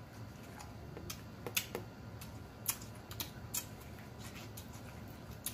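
Quiet eating sounds close to the microphone: chewing with a dozen or so short sharp mouth clicks and smacks scattered through, as spaghetti and corn on the cob are eaten.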